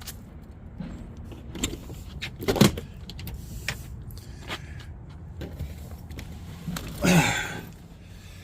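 Handling noises in a vehicle: scattered clicks and knocks, a sharper knock about two and a half seconds in, and a louder brief scraping rush about seven seconds in.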